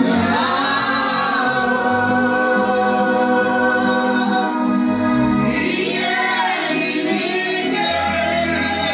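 Gospel choir singing long held notes over a steady low accompaniment, moving to new notes about halfway through.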